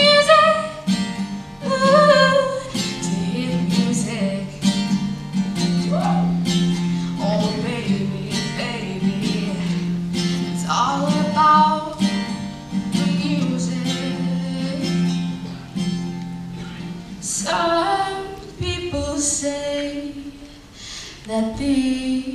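Female singer accompanying herself on an acoustic guitar, strumming and singing a song live.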